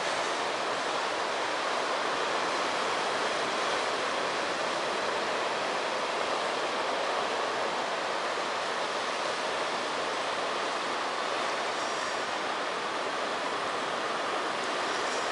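Storm-driven surf breaking along the shore: a steady, even rush of waves with no single breaker standing out.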